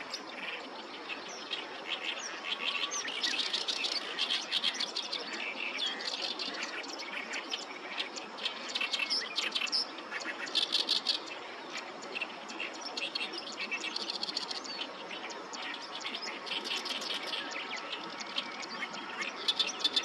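Birdsong of harsh, chattering phrases repeated again and again with hardly a pause, typical of an oriental reed warbler singing, over a steady background hiss.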